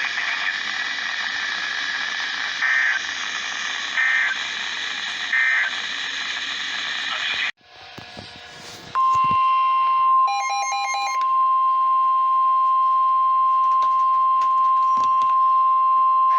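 Weather-radio emergency alert: three short screechy data bursts of an EAS/SAME header come through radio static, about a second and a half apart. The audio then cuts off suddenly, and about nine seconds in a loud, steady single-pitch warning alert tone begins, with a short chirping burst over it a second later.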